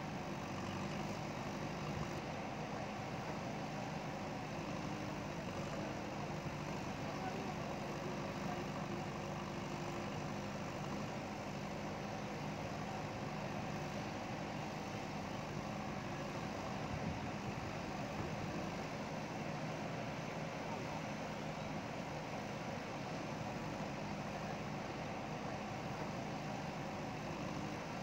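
Diesel engine of a JCB ecoXcellence backhoe loader running at a steady, even speed.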